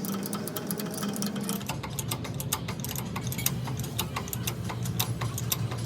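A machine running with a steady hum that drops in pitch about a second and a half in, under rapid, irregular clicking.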